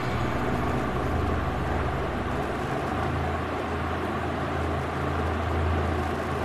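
Steady low rumble of a gas stove burner on high flame under a pan of sugar syrup.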